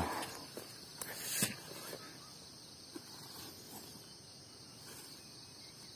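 A hoe chopping into loose earth a few times, the loudest blow about a second and a half in, over a steady high chirring of insects.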